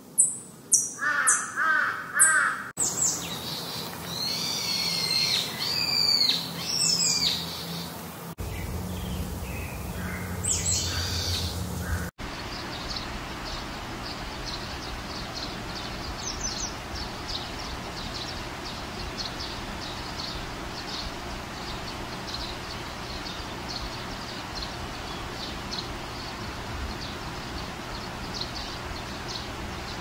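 Wild birds calling: loud, curving fluting and warbling calls through the first twelve or so seconds, then after an abrupt change a steady chorus of quick, faint high chirps.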